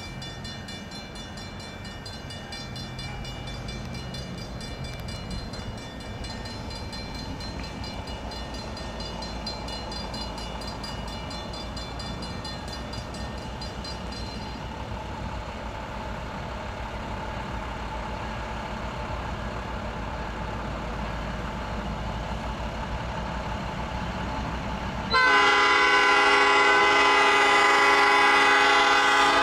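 Low rumble of an approaching freight train's EMD diesel locomotives slowly growing louder, with a faint steady ringing, likely the grade-crossing bell, through the first half. About 25 seconds in, the lead locomotive's air horn comes in suddenly, loud and steady, several tones at once, blowing for the crossing.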